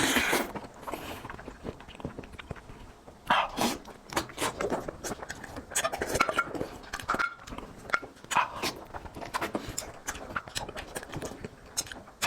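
A person eating close to the microphone, with irregular wet mouth clicks and smacks of chewing through the whole stretch.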